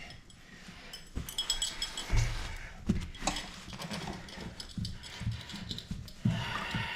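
Scattered clinks and knocks of metal tools and faucet parts being handled at a bathroom sink, with a brief rattle near the end.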